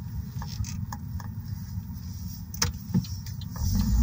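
Truck engine idling at a stop, heard from inside the cab as a steady low rumble with scattered light clicks and creaks. Near the end the engine picks up and grows louder as the truck starts to pull away.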